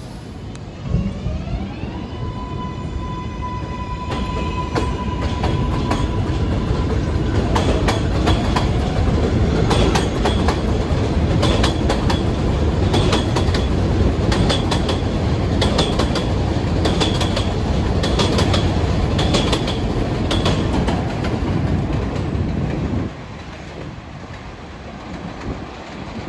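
R188 subway train accelerating: its traction motors give a rising whine that levels off into a steady tone. Then the wheels clatter over the rail joints as the cars run by, and the sound drops away sharply about 23 seconds in.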